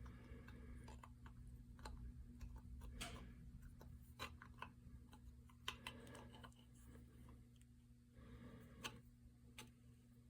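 Faint, irregular clicks and light taps of small metal parts being handled and fitted as a hand drill is put back together, over a steady low electrical hum.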